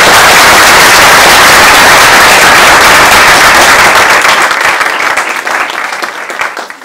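An audience applauding, very loud, with someone clapping right next to the microphone. The applause fades after about four and a half seconds into scattered single claps near the end.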